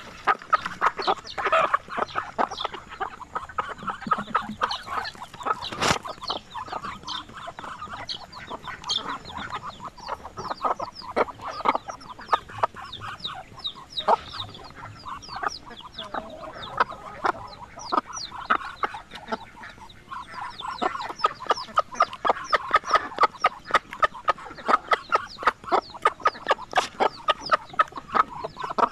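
Free-range chickens clucking as they feed in grass alongside Muscovy ducks: short sounds in quick runs, several a second, with a single sharp click about six seconds in.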